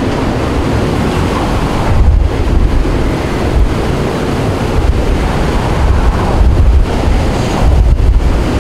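Hurricane eyewall winds, a continuous loud roar with heavy gusts buffeting the microphone, strongest about two seconds in and again near the end.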